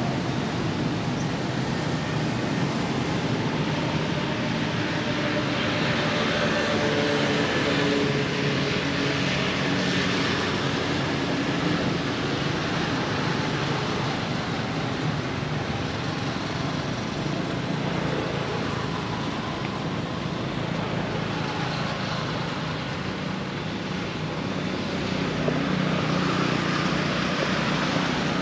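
Steady outdoor background of road traffic, with the hum of a passing vehicle engine around the middle.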